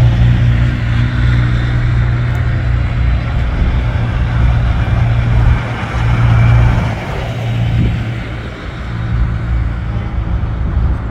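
Diesel engines of big-rig semi trucks with tall chrome straight stacks running as the trucks drive slowly past one after another: a deep, steady rumble. The loudest truck goes by about six seconds in, and the sound eases off after that.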